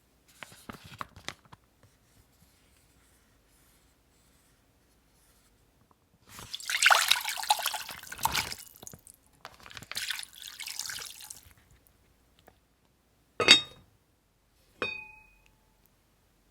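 Liquid pouring or splashing in two rushing stretches, then two sharp clinks of tableware, the second ringing briefly.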